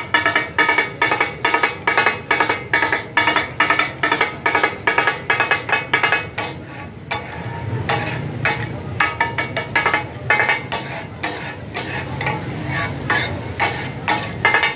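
Two steel spatula blades chopping and scraping katakat on a large iron tawa griddle: fast, even metal clatter of about four ringing strikes a second. After about six seconds the strikes slow and become irregular.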